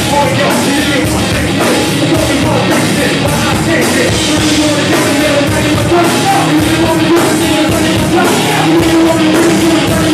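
Live band playing loud, heavy rock music with a steady, driving drum beat.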